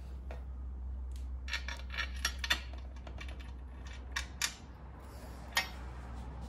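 Light metallic clicks and clinks as a metal radiator guard and its bolts are handled and fitted against a motorcycle radiator: a quick run of clicks about one and a half seconds in, then a few single clinks, over a steady low hum.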